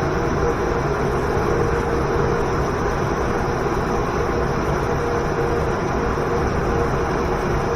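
Waterfall and river: a steady, unbroken rush of falling water, full and deep.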